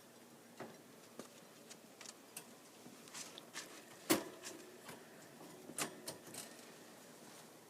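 Pet rats moving about their cage: scattered light clicks, taps and scratches at an irregular pace, with a sharper knock about four seconds in.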